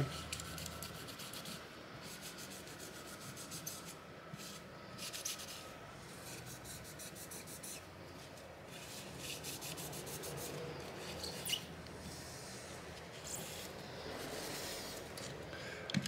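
Cloth dampened with isopropyl alcohol rubbing back and forth over a graphics card's GPU die, scrubbing off old thermal paste: a soft, scratchy wiping in many short strokes.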